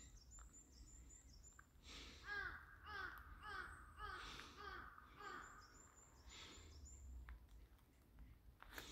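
Faint crow cawing in a quick run of about seven calls, two a second, with thin high chirping of a small bird before and after.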